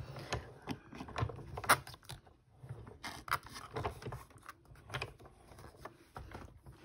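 Cardstock being laid and smoothed over plastic embossing plates by hand: light rustling with a scattering of small clicks and taps, one sharper tap a little under two seconds in.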